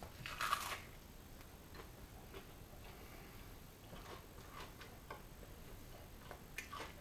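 A bite into a chicken burger about half a second in, then quiet chewing with faint, irregular clicks and smacks of the mouth.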